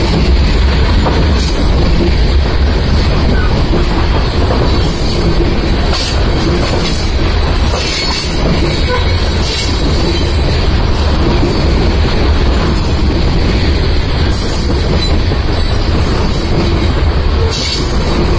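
Covered hopper freight cars rolling past: a loud, steady rumble of steel wheels on rail, with irregular clicks.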